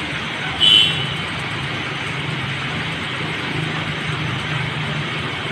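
Street traffic: a vehicle engine running steadily. A brief shrill high tone sounds once, just under a second in.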